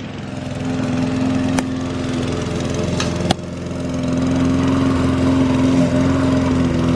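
Lawn mower engine running steadily, with a few sharp clicks about a second and a half in and again around three seconds in.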